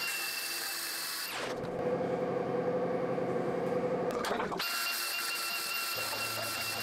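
Corded angle grinder grinding steel: a steady high whine with hiss. In the middle, for about three seconds, a lower, rougher sound takes over before the high whine comes back.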